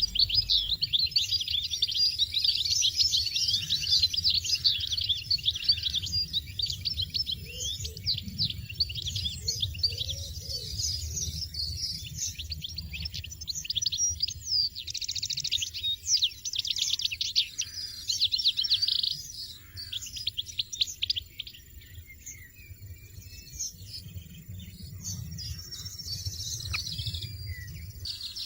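European goldfinches giving rapid, dense high-pitched chirps and twitters, busiest for the first two-thirds and sparser after about 19 seconds.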